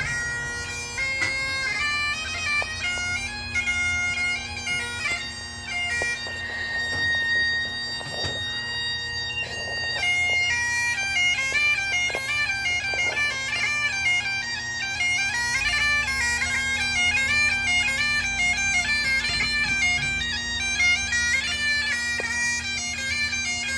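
Bagpipes playing a tune over their steady drone, the melody moving in quick steps with one long held note about six to ten seconds in.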